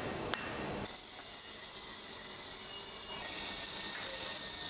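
Steady rush and splash of water in a wire EDM machine's bath as it cuts printed metal parts off the build plate, with a single sharp tap near the start.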